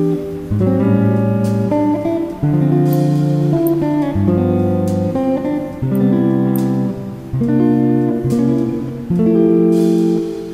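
Background music led by guitar, with notes and chords changing about once a second.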